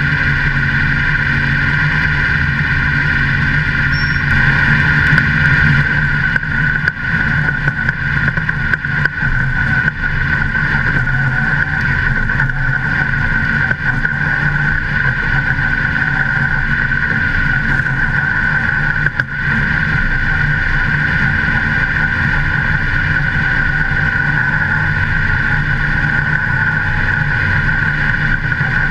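Modified race car's V8 engine running steadily at speed, heard loud and close from a camera mounted on the car, with a few brief drops in level about a quarter to a third of the way in and again around two-thirds through.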